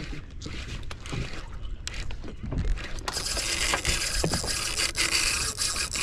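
Large saltwater spinning reel being cranked, its gears whirring steadily as line is wound in; the whirring grows louder about three seconds in.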